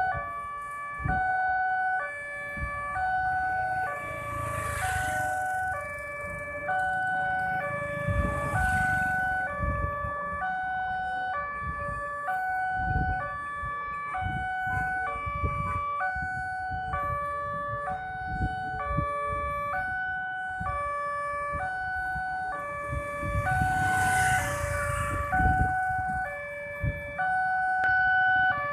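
Indonesian railway level-crossing alarm sounding its electronic two-tone warning, the tones alternating steadily under a second each, signalling that a train is approaching and the barriers are closing. Motorbike and car engines idle and pass beneath it.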